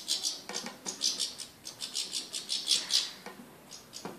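European goldfinch singing in a cage: a rapid, high twittering song that stops about three seconds in. A single light knock near the end.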